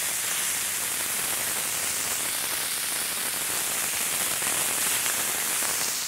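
Ground beef and onions sizzling steadily on a hot Blackstone flat-top griddle, a dense crackle like rain.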